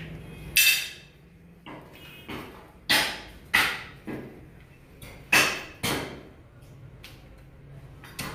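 Meat cleaver chopping beef on a wooden chopping block: sharp, separate chops, several of them in pairs about half a second apart, with lighter knocks between.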